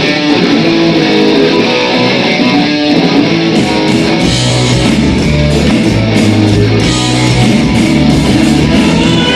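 Live rock band playing loudly. An electric guitar plays alone at first, and drums and bass come in about three and a half seconds in.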